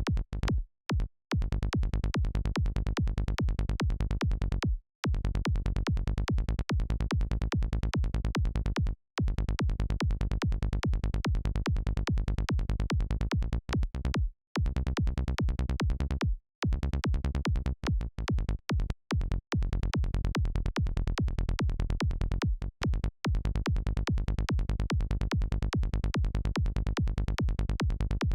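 Psytrance kick drum and rolling synth bassline (a BazzISM-made kick and a Sylenth1 bass) pumping in a fast, even pulse, with heavy low end. The loop cuts out to silence for short moments several times.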